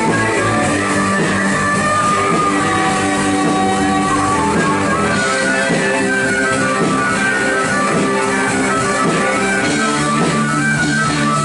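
Live rock band playing an instrumental passage: electric guitar lines over bass and drum kit.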